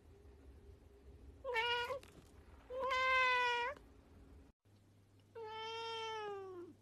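A blue-eyed lynx-point cat meowing three times: two short meows, then a longer meow that falls in pitch at the end.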